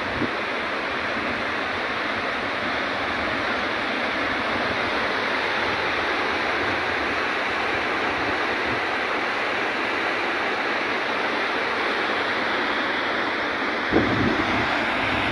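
Floodwater rushing steadily through a breached embankment, an even wash of water noise. A brief low thump near the end.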